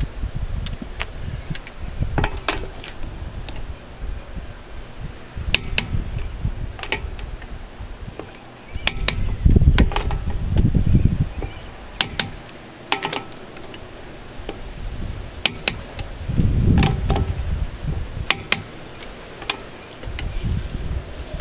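Click-type torque wrench set to 115 ft-lb, tightening the lug nuts on an aluminum trailer wheel. It gives a sharp double click every few seconds as each nut reaches final torque, with fainter clicks in between. Wind buffets the microphone at times.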